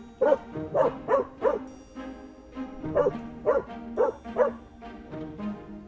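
A dog barking in short, sharp yaps, in two quick runs of about four or five, over light background music.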